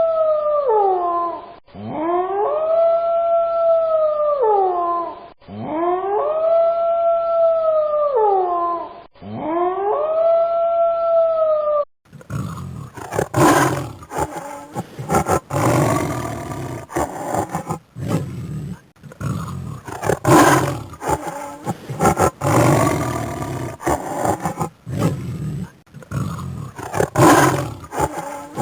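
A wolf howling, the same long howl repeated four times: each one rises, holds a steady pitch and then falls away. About twelve seconds in it cuts to a big cat roaring and growling in rough, irregular calls.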